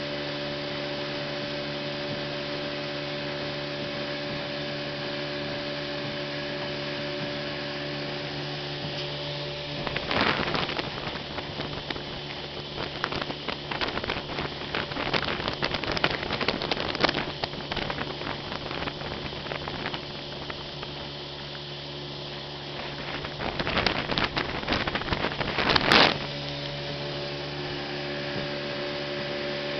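Motorboat engine running steadily at cruising speed. From about ten seconds in until near the end, wind buffeting and crackling on the microphone drowns it out, louder in gusts, then the engine drone returns.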